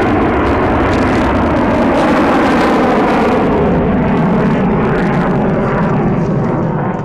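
Lockheed Martin F-22 Raptor's twin Pratt & Whitney F119 turbofans on afterburner: a loud, steady jet roar, fading a little near the end as the jet climbs away.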